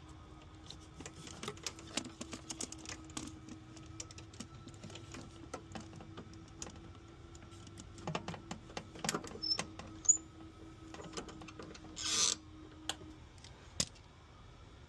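Scattered clicks and knocks of hand tools and electrical parts being handled as temporary panel wiring is taken apart, with a short rasp about twelve seconds in. A faint steady hum runs underneath and stops about a second before the end.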